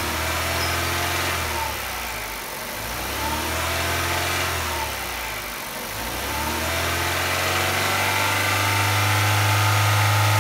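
Kia Rio's 1.6-litre G4FC four-cylinder, 16-valve petrol engine being revved: the revs sag and climb again twice, then rise and are held high near the end. It runs stably, the sound of a healthy engine.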